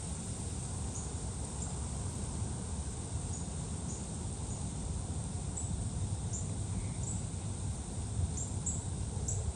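Wind rumbling on the microphone, with a dozen or so faint, very short high-pitched chirps at uneven gaps, about one a second.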